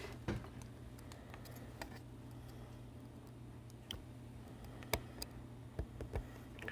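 Scattered light clicks and ticks of small tools handling tiny phone parts, a few sharp taps spaced irregularly, the clearest about four and five seconds in, over a steady low hum.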